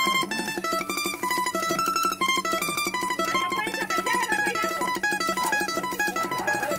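Background music played on plucked string instruments: a quick melody of changing notes over a steady, fast-strummed accompaniment.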